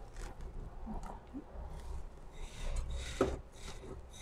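Hands pressing and turning a piece of pork in a bowl of panko breadcrumbs: a soft, dry rustling and rubbing of crumbs, with one light knock about three seconds in.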